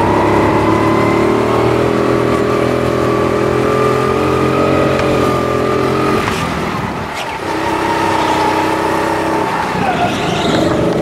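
Go-kart engine running at speed, heard from on board the kart. Its note holds steady, dips briefly about six seconds in, then picks up again.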